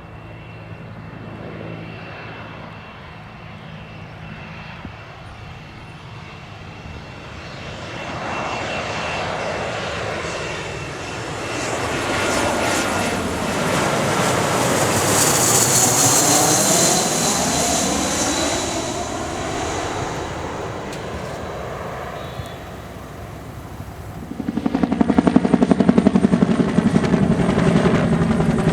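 Jet engines of a JASDF U-680A, a twin-turbofan Cessna Citation Latitude, growing louder as it passes, with a high whine and a falling pitch as it goes by, then fading. Near the end the sound cuts abruptly to a UH-1N Twin Huey helicopter running loudly, with a steady low drone and a fast rotor beat.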